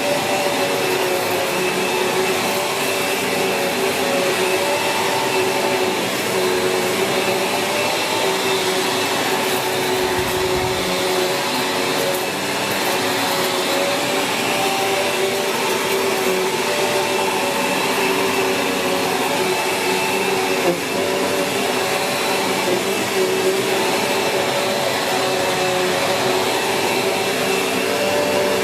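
Sanyo SCA-7AX bagged upright vacuum cleaner running steadily, a motor whine made of several steady tones that waver slightly in pitch, with one small click about 21 seconds in.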